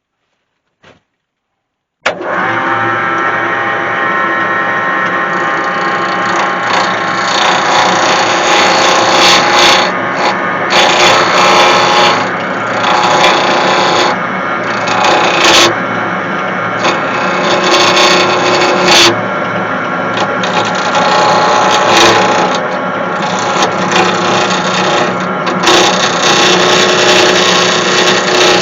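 Myford ML8 woodturning lathe starting up about two seconds in and running steadily, with a gouge cutting into the spinning scrap wood in irregular rough surges and sharp catches.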